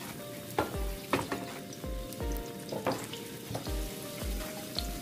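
Minced garlic and chili sizzling and crackling in hot oil in a nonstick wok, with a few sharper pops. Near the end a spatula stirs through it.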